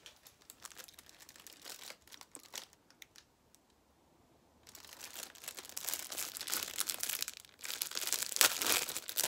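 Close rustling and crinkling handling noise, with a few soft clicks at first, then a short near-quiet pause, then dense crinkling from about halfway in that grows loudest near the end.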